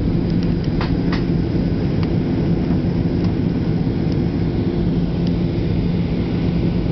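Steady cabin drone of a Ryanair Boeing 737-800 airliner descending on approach: engine and airflow noise with a low, even hum.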